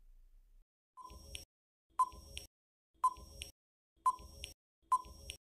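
Quiz countdown-timer sound effect: five short beeping ticks, one each second.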